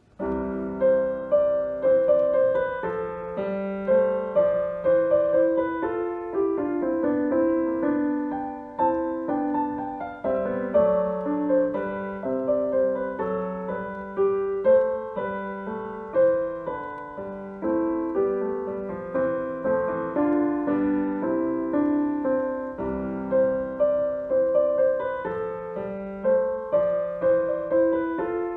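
Piano playing the postlude at the close of a church service: a flowing piece of many separate notes that starts right after the blessing.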